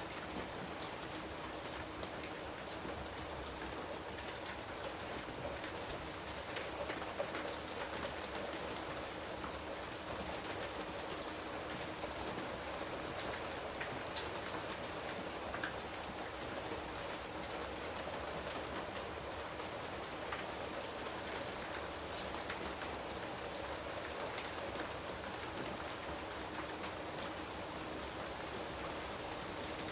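Steady rain falling in a jungle, a constant hiss with many separate drops pattering and clicking on leaves and surfaces.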